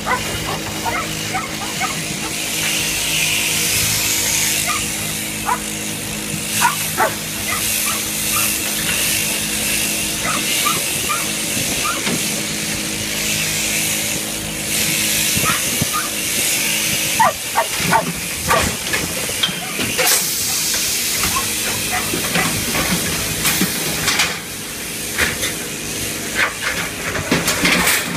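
Sheep-shearing handpiece running while crutching a ewe: a steady machine hum with a high hiss, and many short sharp sounds throughout. The hum drops away about seventeen seconds in.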